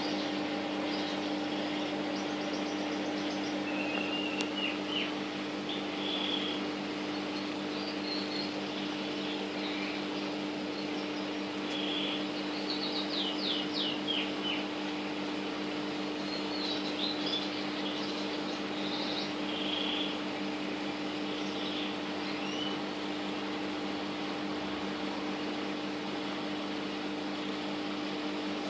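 Parrots chirping in short scattered calls, with a quick run of rapid high chirps about twelve to fourteen seconds in, over a steady electrical hum.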